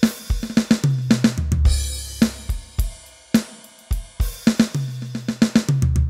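Drum samples triggered on a Roland SPD-SX sampling pad: a fast, uneven run of drum and cymbal hits, with a deep held bass tone about a second in and again near the end.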